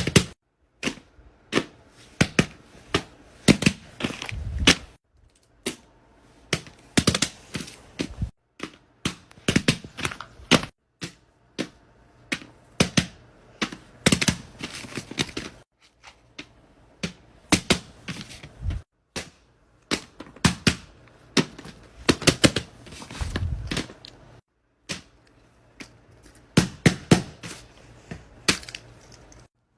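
Small plastic fidget toys clicked, tapped and handled in quick runs of sharp clicks, in a string of short clips that cut off abruptly every few seconds.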